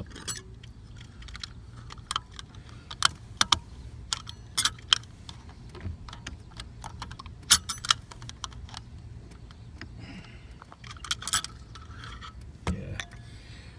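Irregular sharp clicks and clacks as a steering wheel horn button and its contact parts are handled, lined up and pressed into place on the wheel hub.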